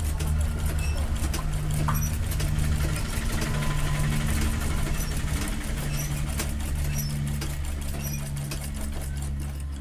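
Domestic sewing machine running steadily, stitching a seam through cotton cloth with a rapid ticking of needle and feed. The machine is skipping stitches, leaving gaps in the seam.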